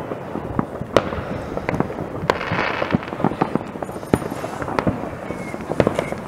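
Many distant fireworks going off across a town at once: a continuous, irregular rumble of bangs and pops, with a few sharper bangs standing out and a crackling hiss about two and a half seconds in.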